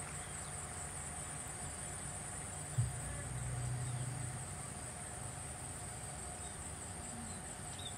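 Steady, high-pitched insect chirring, with a soft knock and a low rumble about three seconds in.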